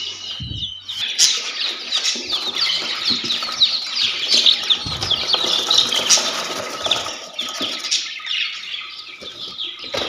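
A group of young chicks peeping continuously, many short high falling peeps overlapping each other, with a couple of dull knocks from a cardboard box being handled.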